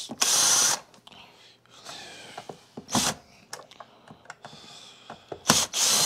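Hitachi cordless drill/driver running in short bursts, backing screws out of a vacuum cleaner's plastic housing: a half-second run just after the start, a brief one about three seconds in, and another near the end, with small clicks of handling in between.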